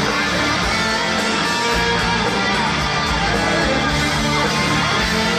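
Rock band playing an instrumental live, electric guitars over bass and drums, loud and steady, heard from the crowd in an arena.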